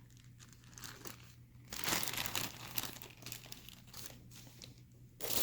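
Plastic bag crinkling as it is handled, in scattered rustles, loudest about two seconds in, with a louder continuous rustle starting just before the end.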